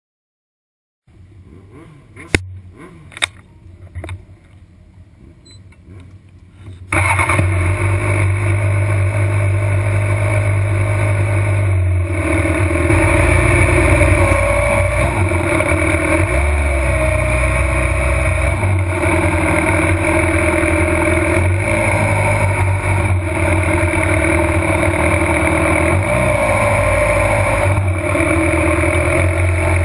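A few sharp clicks and knocks, then about seven seconds in a motorcycle engine comes in suddenly and runs steadily at low revs, with a few small rises and dips in pitch: the Suzuki GSX-R600's inline-four rolling through the pit lane.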